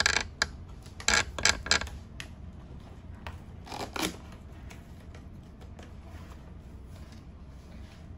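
An adhesive seal sticker being peeled off a cardboard box, in short rasping tears: one at the start, a quick cluster of three or four about a second in, and another near four seconds.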